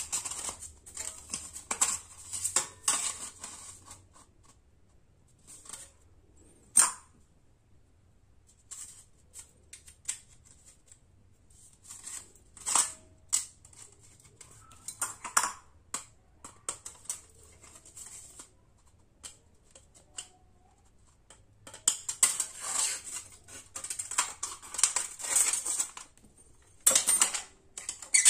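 A thin metal windshield sheet being handled and assembled, with metal pins pushed through it: irregular clicks, taps and crinkles of flexing sheet metal in bursts with quiet stretches between, and one sharp click about seven seconds in.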